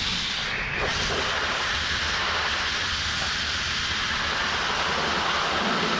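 Abrasive blast nozzle running with a steady, loud hiss as it strips rust and paint off a steel tipper body.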